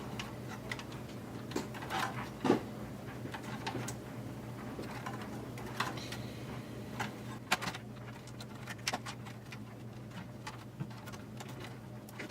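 Scattered clicks, taps and small knocks of plastic and metal parts being handled and fitted while a VHS/DVD combo player is put back together, the sharpest about two and a half seconds in and about seven and a half seconds in. A steady low hum runs underneath.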